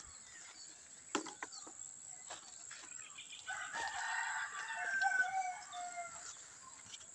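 A rooster crows once, a long call of about three seconds starting around halfway through, after a couple of sharp clicks near the start.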